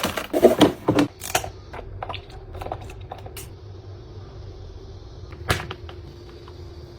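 Household objects being handled: a quick run of sharp clicks and crackles in the first second, then scattered light taps and one sharp click about five and a half seconds in, over a faint steady hum that starts partway through.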